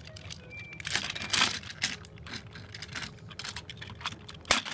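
Plastic toy train coach handled and rolled along plastic track by hand, giving irregular light clicks and clatter, with one sharper click near the end.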